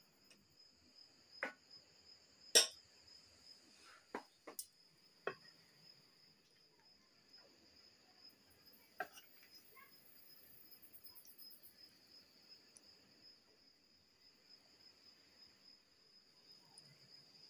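Crickets chirping in a steady high-pitched trill, with several sharp clinks of a serving spoon against steel pots and plates in the first half. The loudest clink comes about two and a half seconds in.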